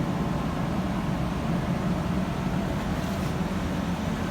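Steady low hum of running machinery aboard a fishing boat, even in level throughout, with a strong low drone and no sudden changes.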